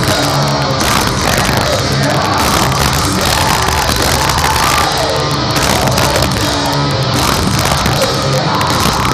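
Heavy metal band playing live, with distorted guitars and drums, recorded from the audience with poor, muddy sound.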